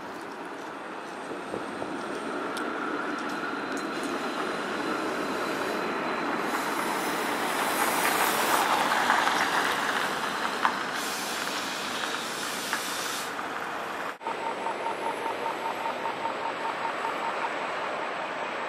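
Street traffic with a light rail tram running past on its track, a faint high whine early on, then a van driving by close, loudest about halfway through. After a sudden cut at about 14 s, tram and traffic noise continues with a rapid regular ticking, about six ticks a second, for about three seconds.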